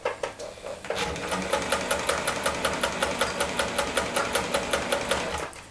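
Olimatic 4000 electric sewing machine sewing a zigzag stitch through denim: the motor hums and the needle mechanism clicks evenly, about five strokes a second. It starts about a second in and stops near the end.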